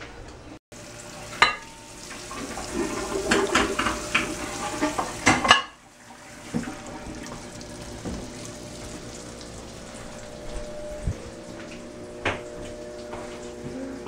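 Kitchen clatter: dishes and utensils clinking over a hissing rush for about three seconds, then a low steady hum with a few scattered clinks.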